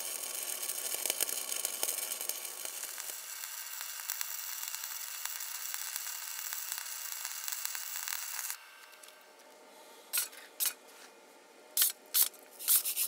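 Flux-cored MIG welding arc from a Hitbox SYN-MIG200Pro inverter welder, crackling and hissing steadily as it runs a bead on thin steel, then cutting off abruptly about eight and a half seconds in. A few short scraping strokes follow near the end.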